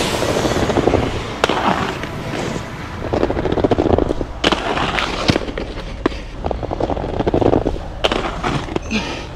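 Aggressive inline skates' hard urethane wheels rolling over rough concrete, with a scraping hiss at the start and several sharp clacks of the skates landing or striking the ledge.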